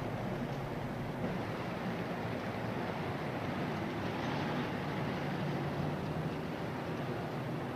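Car engine and road noise, a steady drone while the car is driving.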